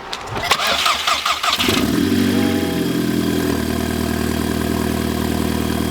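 Volkswagen Jetta 2.0T FSI turbocharged four-cylinder engine cranking on the starter for under two seconds, catching, flaring up briefly and settling into a steady idle. This is the first start after a spark plug change.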